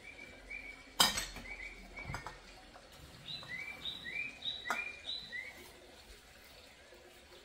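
Kitchenware clinking: one sharp clink about a second in and a few lighter knocks after, with a small bird chirping short repeated notes about twice a second in the background.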